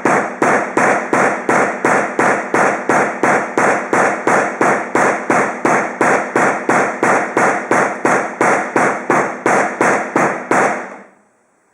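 Ball end of a hammer striking a premium HDMI cable over and over, about three blows a second, in a crush test on the cable. The blows stop near the end.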